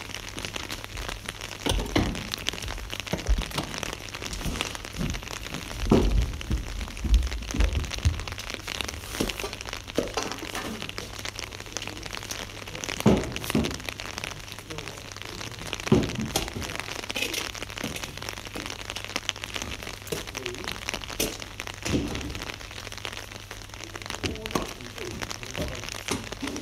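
Soil being dug out of a pile with tools: irregular knocks, scrapes and thuds every second or few, with a busier run of thumps about six to eight seconds in, over a steady noisy background.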